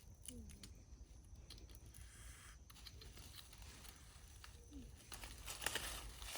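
Faint rustling and small crackles of leaves and plant stems, busier and louder over the last second or so.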